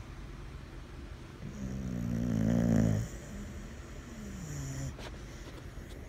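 Sleeping boxer dog snoring: a loud rasping snore about a second and a half in that cuts off suddenly, then a softer, shorter one about a second later.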